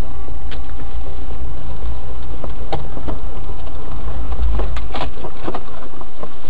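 Heavy low vehicle rumble with a scatter of sharp knocks and cracks, most of them in the middle and latter part.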